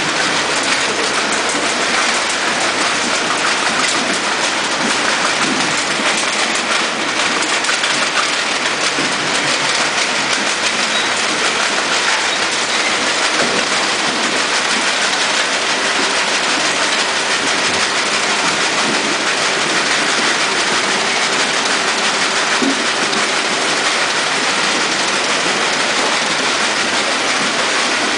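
Kiwifruit packing line machinery running: a loud, steady clatter of conveyors and rollers, dense with rapid small clicks.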